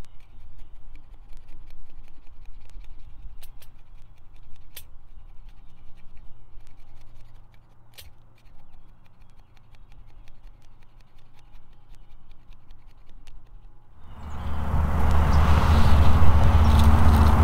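Knife blade scraping shavings off a stick of fatwood into a small wood-burning stove: a faint, dry scratching with small ticks. About fourteen seconds in, a loud rushing noise sets in and takes over.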